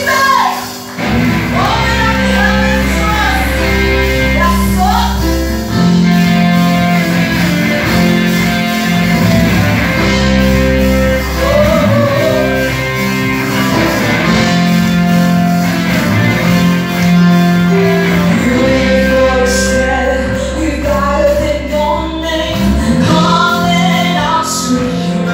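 Live Christian worship music: several women singing together into microphones over a band with drums and sustained low bass notes.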